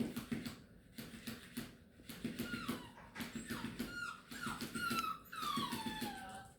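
Overtired beagle puppy fussing: a run of high whines that fall in pitch, starting about two seconds in, the longest near the end, over low grumbling and scuffling.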